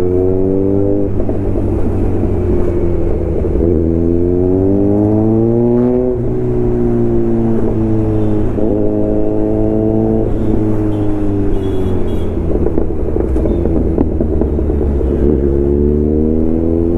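Kawasaki Z900's inline-four engine running under way, its pitch climbing as it pulls through a gear and dropping sharply at an upshift about six seconds in, then holding fairly steady and climbing again near the end, over a steady low rumble.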